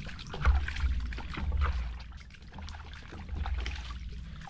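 Water splashing and trickling in short crackly bursts over a low rumble.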